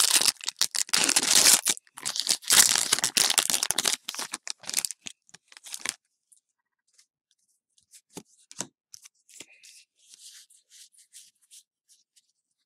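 Foil wrapper of a Pokémon trading-card booster pack being torn open and crinkled, in two long rough stretches over the first four seconds, with lighter crackling after. Later only faint soft flicks and slides of the cards being handled.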